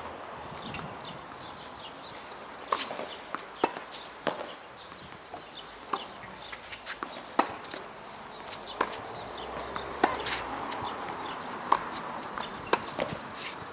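Tennis rally: sharp pops of tennis balls struck by rackets and bouncing on the court, about one every second or so.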